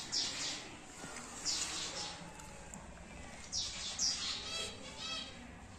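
Short soft swishes of fabric rustling as a cloth igloo cat bed is handled, with a brief chirping call from a bird about five seconds in.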